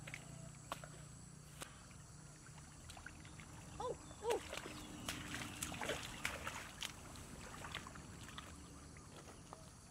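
Footsteps wading and splashing through shallow muddy water, with rustling plants and scattered knocks, the splashing busiest a little past the middle. Two short squeaky calls that rise and fall come about four seconds in.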